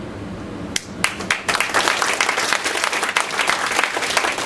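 Audience applause in a hall: a first few claps about a second in, quickly swelling into steady clapping from many hands.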